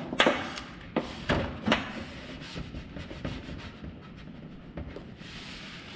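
Squeegee rubbing a cut vinyl panel down onto a race car body: four sharp swipes in the first two seconds, then lighter, scattered rubbing.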